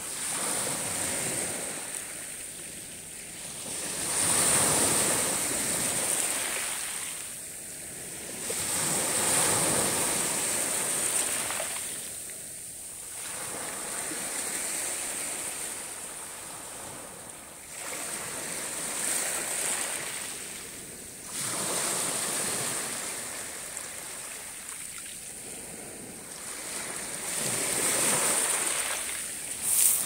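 Small Black Sea waves breaking and washing over a pebble beach, the surf swelling and falling back every few seconds.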